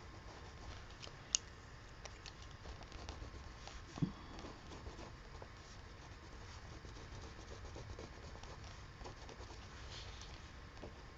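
Faint, scratchy strokes of a coloured pencil on paper. There is a sharp click a little over a second in and a soft knock about four seconds in.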